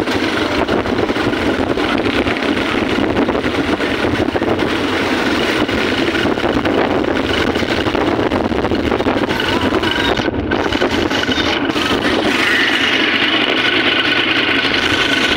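Steady engine and road noise of a moving vehicle, heard from on board. A higher-pitched hum grows stronger about twelve seconds in.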